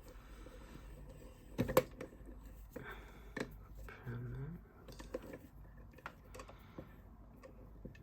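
Hard clicks and knocks of a Master Lock 608 padlock being handled and set in place, a few separate sharp strikes with the loudest about two seconds in.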